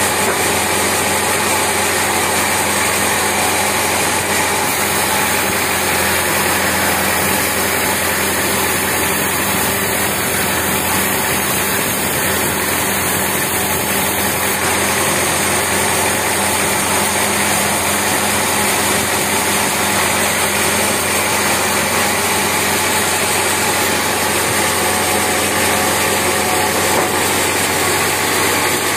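Band sawmill running with a steady mechanical drone while a teak beam is sawn lengthwise on the carriage.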